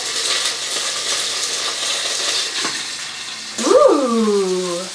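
Pork dumplings sizzling in hot oil in a frying pan after steaming, a steady hiss. About three and a half seconds in, a person gives a drawn-out 'ooh' that rises and then falls in pitch, louder than the sizzle.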